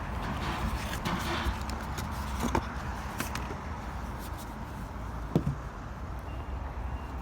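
Unboxing handling noises: scattered clicks and light knocks from packaging and the small speaker being handled, over a steady background hum, with the firmest knocks about two and a half and five and a half seconds in.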